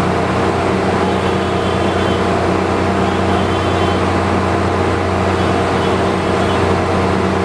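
Diesel train idling while stopped, a steady engine hum that holds one even pitch.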